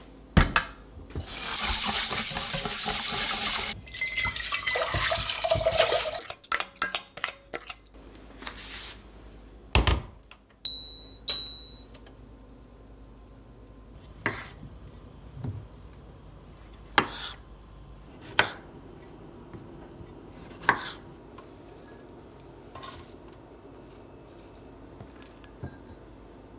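Kitchen tap running into a stainless steel sink and bowl for a few seconds, with a metal whisk and bowl clattering. Then a knife cutting through kiwi fruit onto a wooden cutting board, single knocks a second or two apart.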